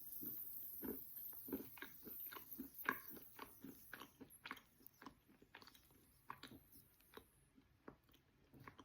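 A mouthful of soaked chalk being bitten and chewed close to the microphone: soft, wet crunches about twice a second, louder at first, then fewer and quieter in the second half.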